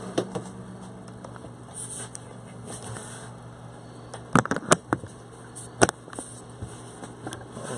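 Handheld camera being moved and handled: light clicks near the start, then several sharp clicks and knocks about four and a half and six seconds in, over a low steady hum.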